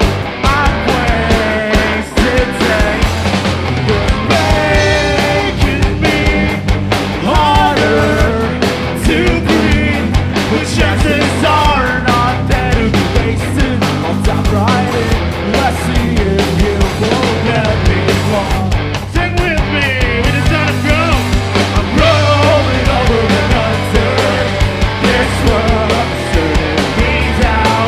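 A live rock band playing a song, with a sung lead vocal over steady drums and guitar.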